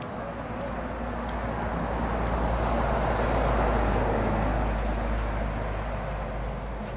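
A road vehicle passing by, its engine and tyre noise swelling to a peak midway and then fading away.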